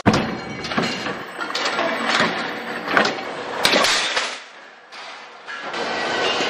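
Factory workshop clatter: machinery running with irregular metallic knocks and bangs, dropping away briefly a little past the middle before the noise picks up again.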